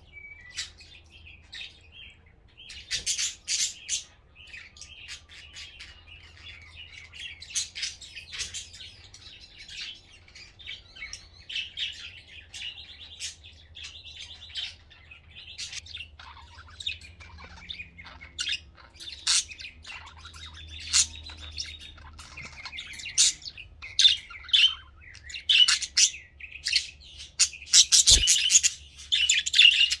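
Budgerigars chirping and warbling, a busy run of short twittering calls that grows louder and denser over the last few seconds.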